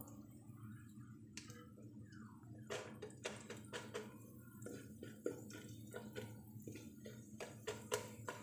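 Popcorn kernels heating in butter in a nonstick wok, stirred with a slotted spatula: faint, irregular crackling clicks of the sizzling butter and the spatula against the pan, starting about three seconds in, before the kernels begin to pop.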